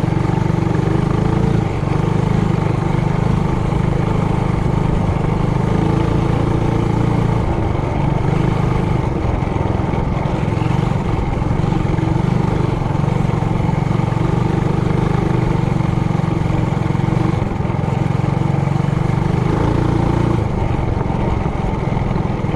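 Trailmaster Hurricane 200X mini bike's single-cylinder four-stroke engine running steadily under throttle on a trail ride. It eases off briefly a couple of times before pulling again.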